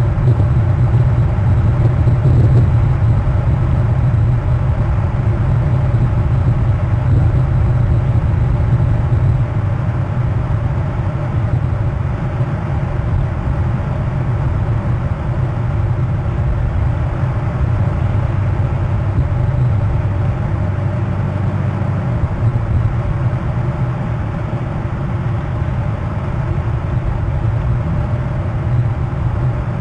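A steady low rumble of background noise, unchanging throughout, with no distinct calls or knocks standing out.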